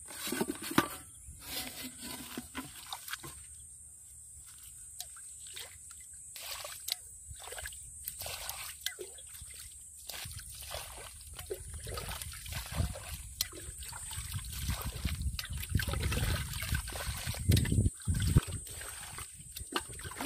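Muddy water sloshing, splashing and trickling as it is scooped and bailed out of a small mud pit with a steel bowl, in a run of uneven splashes that grows heavier in the second half.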